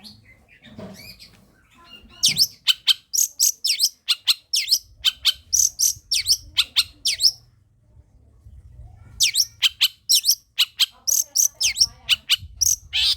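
Long-tailed shrike (cendet) singing: rapid runs of sharp, high notes that each fall steeply in pitch, about three a second. It breaks off for about a second and a half in the middle, then starts again.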